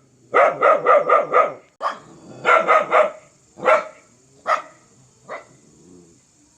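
Dog barking in quick runs of several barks, then single barks spaced further apart toward the end.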